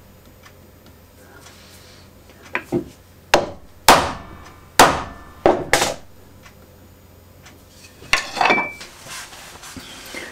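Hammer knocking on a wooden block on a workbench: about seven irregular blows between about two and six seconds in. A brief clatter follows near the end.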